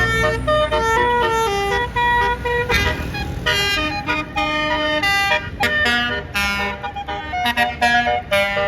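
Basuri melodic bus horn playing a quick tune of stepping tones, over the low running sound of a bus engine that is loudest at the start and again about three seconds in.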